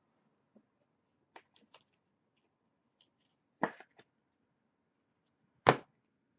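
Trading card packs and cards being handled on a table: a scatter of short rustles and clicks, three quick ones early, a few more in the middle, and one louder sharp knock or snap near the end.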